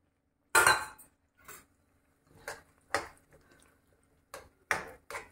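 Metal spoon and kitchenware against the kadhai while homemade fresh cream is spooned in: one loud clatter about half a second in, then a series of light, irregular taps and scrapes.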